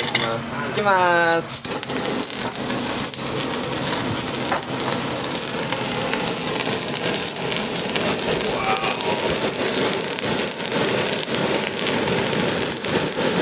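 Handheld gas torch hissing steadily as its flame sears the skin of a mackerel fillet, with small crackles from the searing skin. The hiss starts about a second and a half in.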